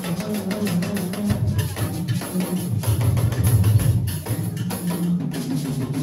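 Dance music driven by drums and percussion, a busy steady beat of strikes over a strong deep bass part.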